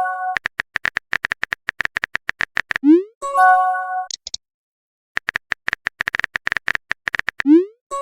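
Phone-keyboard typing clicks in two quick runs, each followed by a short rising pop and a bright chime of several steady tones: text-message typing and message-bubble sound effects. A chime also fades out at the very start, and another begins at the end.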